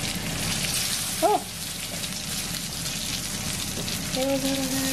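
Egg-coated eggplants frying in hot oil in a non-stick pan, with a steady sizzle.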